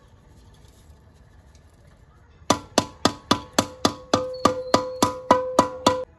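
Hammer blows on metal, about fourteen evenly paced strikes at roughly three and a half a second, each with a short ringing tone. They start about two and a half seconds in and stop abruptly near the end.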